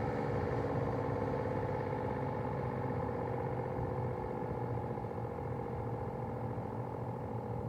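ACA P-15 outdoor warning siren sounding its steady alert tone, several pitches together, sliding slowly lower and getting gradually quieter.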